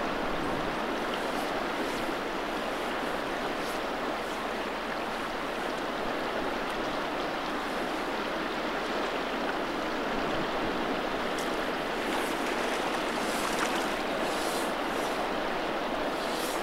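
River water rushing and burbling past, a steady, even noise of flowing current.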